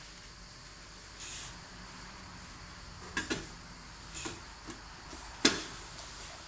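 A red plastic curry powder container being shaken and tapped over a pot of stockfish: a short soft hiss about a second in, then four sharp clicks and knocks, the loudest about five and a half seconds in.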